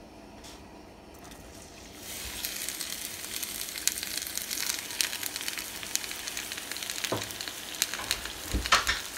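Sliced onions sizzling and crackling in hot oil in a frying pan, the sizzle starting about two seconds in as they hit the oil. A couple of sharp knocks near the end.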